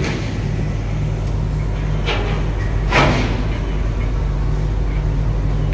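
Engines running with a steady low hum, with two brief sharp noises about two and three seconds in, the second louder.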